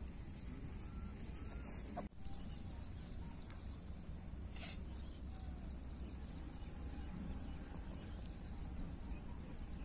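Crickets chirring in a steady, continuous high-pitched drone, over a low steady rumble.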